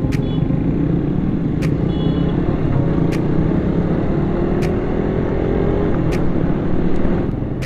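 Motorcycle engine and road rumble as the bike pulls away from a stop into traffic. The engine note climbs through the middle, then eases near the end, with a faint click about every second and a half.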